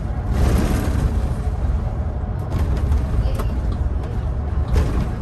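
Solaris Urbino 18 articulated city bus on the move, heard from on board: a steady low rumble of engine and road. A louder rushing noise comes about half a second in, and a few brief knocks or rattles follow later.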